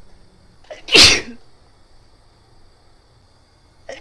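A woman sneezing in a run: a quick catch of breath, then one loud sneeze about a second in, with the next sneeze starting right at the end. The sneezes are set off by sniffed black pepper and a paper towel tickled in her nose.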